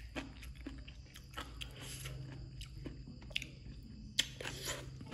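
A person chewing papaya salad close to the microphone: soft crunches and wet mouth clicks, with a few sharper clicks about four seconds in, over a low steady hum.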